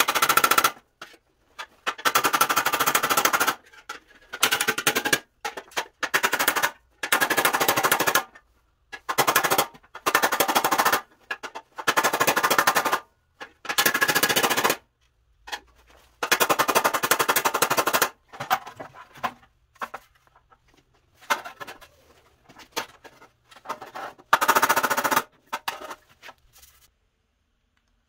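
A power tool stripping old paint from the sheet-steel grille surround of a 1948 GMC truck, run in repeated bursts of one to two seconds with a rapid chattering rasp. The bursts stop and start abruptly, then come shorter and further apart near the end.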